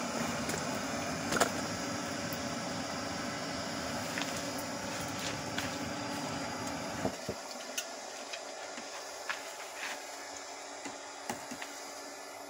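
Red-hot steel kored (weeding-hoe) blade being quenched in a bucket of used engine oil to harden it, hissing and crackling as the oil smokes. A steady low rushing noise underneath stops about seven seconds in, leaving the hiss dotted with small crackles.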